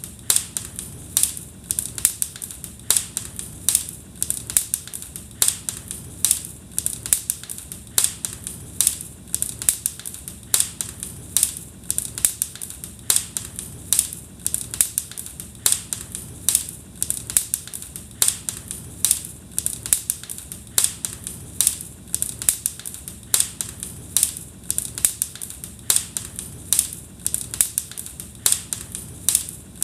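Wood fire crackling in a fireplace: a steady stream of sharp snaps and pops over a low, even rumble of the flames.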